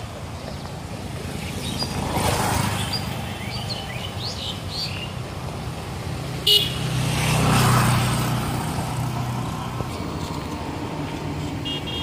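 Motorbikes passing on a road, one about two seconds in and a louder one around eight seconds, with a short horn beep just before the second. Small bird chirps in the background.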